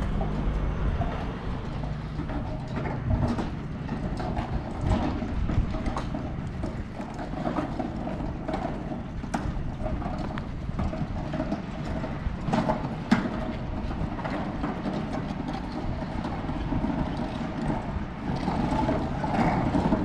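Street ambience: irregular footsteps and knocks on pavement over a steady background of traffic, with a low vehicle rumble in the first few seconds.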